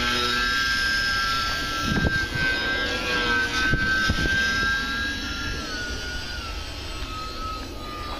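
Electric motor and propeller of a small foam RC airplane whining steadily at high throttle, the pitch easing down a little about five and a half seconds in. Wind buffets the microphone with a low, gusty rumble.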